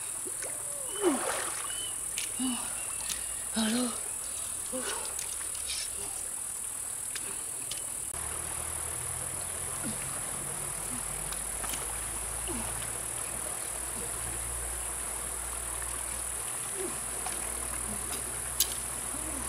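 A steady high-pitched insect drone runs throughout. In the first half it sits over splashing and gurgling water as hands work under a rock in a river. After that the splashing stops and a steady river rush lies beneath the drone, with a single sharp click near the end.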